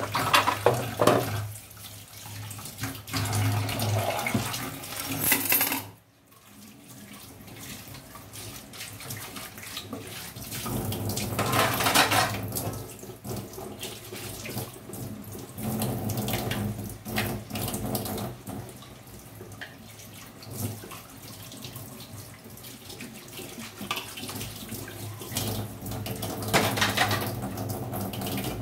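Kitchen tap running into a sink during dish washing, with clinks of dishes and utensils. The water stops for a moment about six seconds in, then runs again.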